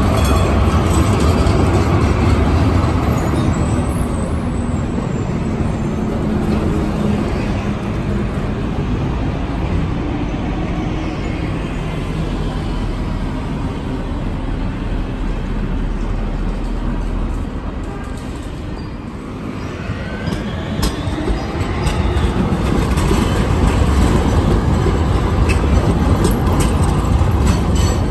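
City trams and a bus passing in street traffic: the low rumble of tram wheels on rails and vehicle engines. It dies down briefly about two-thirds of the way through, then builds again as another tram approaches.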